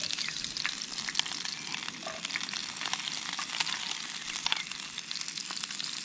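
Chopped onion and garlic frying in hot oil in a pan on a portable gas stove: a steady sizzle with many small crackles and pops. The vegetables have only just gone into the oil.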